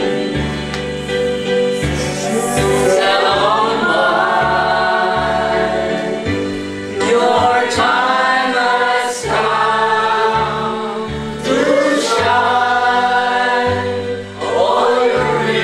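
A group of people singing a song together into a microphone, with instrumental accompaniment holding steady bass notes under the voices.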